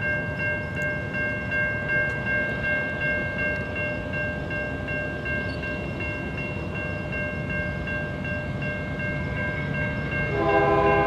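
Freight train approaching with a steady rumble and a steady high ringing tone; about ten seconds in, a locomotive's multi-chime air horn starts to blow.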